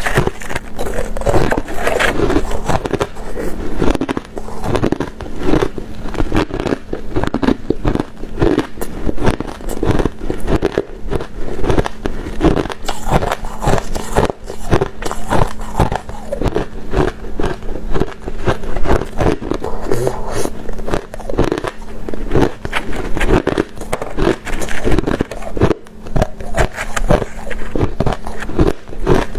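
Ice being bitten and chewed close to the microphone: dense, irregular crunching and cracking with no real pause.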